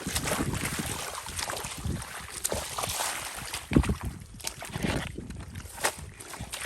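Shallow floodwater splashing and sloshing as fish are caught by hand, with a louder splash about halfway through.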